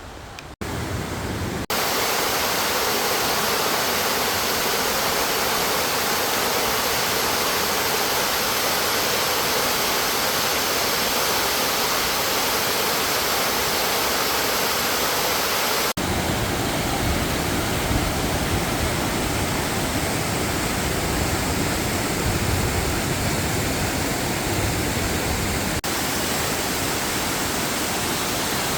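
Rushing water of a mountain valley stream cascading over rocks, a loud steady roar. It changes abruptly in tone about two seconds in, again at about sixteen seconds when it turns deeper and fuller, and once more near the end.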